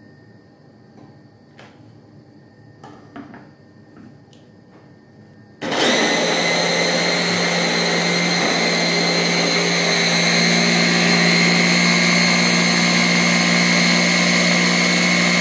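Hand blender motor on its chopper bowl switches on about six seconds in and runs steadily, chopping chickpeas with tahini, lemon juice and garlic into hummus. Before it, a few light clicks and taps.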